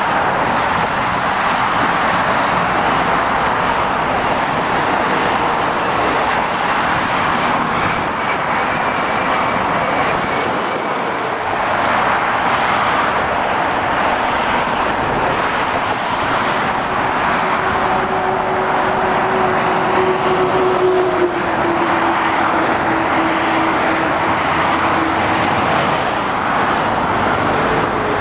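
Steady roar of dual-carriageway traffic: tyres and engines of lorries, vans and cars passing close by. In the second half a hum sinks slightly in pitch over several seconds as a vehicle goes past.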